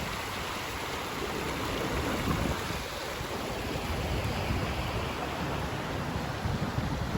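Steady outdoor rushing noise, even throughout, with a low rumble underneath.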